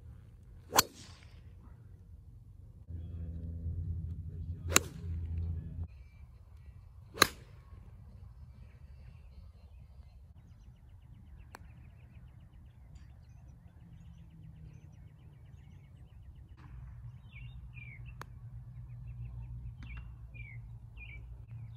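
Golf club striking a ball: three sharp cracks, about one, five and seven seconds in, the first on the tee shot. A low rumble runs from about three to six seconds. Birds chirp over the last few seconds, with a faint tap of a putter near the end.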